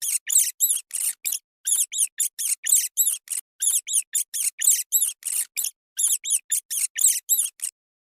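An animal giving a rapid series of short, high-pitched squeaky chirps, about four a second, in runs broken by brief pauses; the calls stop shortly before the end.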